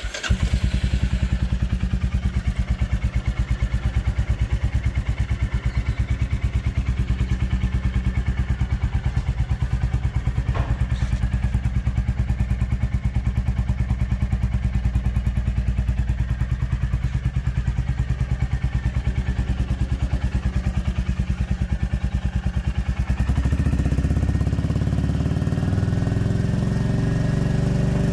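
Royal Enfield Classic 350 single-cylinder engine running at idle with an even, fast thump through an exhaust with the stock catalytic converter and a Customer chamfered tip, a deeper, slightly quieter note. The sound changes about 23 seconds in.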